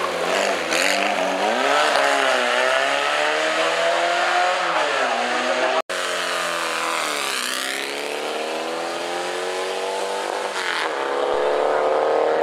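Classic single-seater racing car engines under hard acceleration on a hill climb. The engine pitch climbs and drops back at gear changes. About six seconds in, the sound cuts suddenly to another car, whose engine note falls and then rises steadily as it accelerates.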